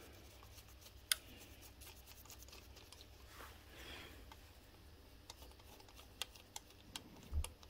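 Faint metallic clicks and ticks as loose bolts are turned out by hand from the steel underplate beneath a Myford ML7 lathe carriage. There is one sharper click about a second in, a run of small ticks in the last few seconds and a dull knock near the end.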